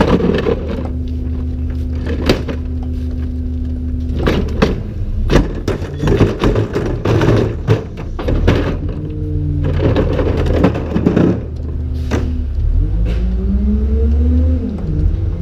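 Garbage truck's cart tipper lifting and dumping a green organics cart, with repeated clanks and bangs as the cart is shaken out into the hopper, over the truck's steady diesel idle. Near the end the engine revs up and falls back as the truck pulls away.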